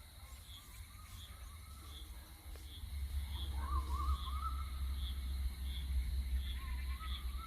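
Outdoor farm ambience: a faint high chirp repeating about three times every two seconds and a brief warbling animal call around the middle, over a low rumble that grows louder from about three seconds in.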